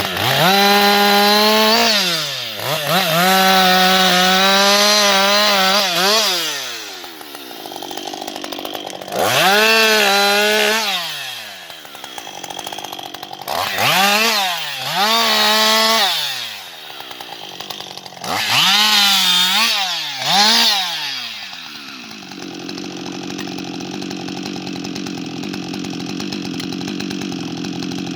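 Husqvarna 560XP two-stroke chainsaw revved to full speed in four bursts, the pitch rising and falling each time, the first held for several seconds. It then drops to a steady idle for the last six seconds or so.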